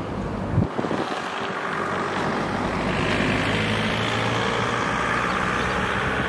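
City street traffic: a motor vehicle running and passing, with tyre and engine noise swelling about halfway through. A short knock sounds about half a second in.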